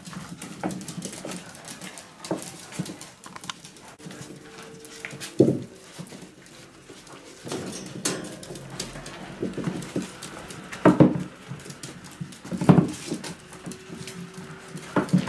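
Miniature pinscher puppies squeaking over a whole rat in repeated short cries, with two longer held squeaks; the loudest cries come about eleven and thirteen seconds in.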